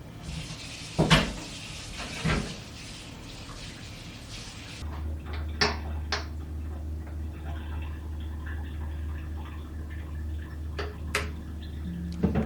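Water running from a kitchen tap, with dishes knocking twice in the sink. About a third of the way in the water stops and a low steady hum starts, with a few light clinks of dishes.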